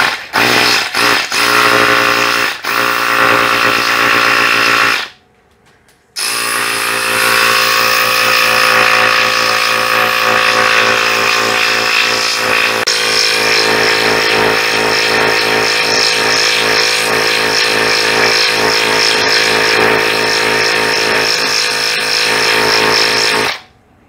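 Ryobi P737D 18-volt cordless inflator's small compressor running as it pumps a thermal expansion tank's air side up to 70 PSI, to match the house water pressure. It starts in short bursts, pauses for about a second, then runs steadily until it shuts off near the end as the tank reaches 70 PSI.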